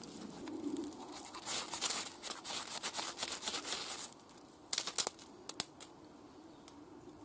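Cold Steel SRK knife blade scraping in a quick run of strokes for about two and a half seconds, then a few short, sharp scrapes.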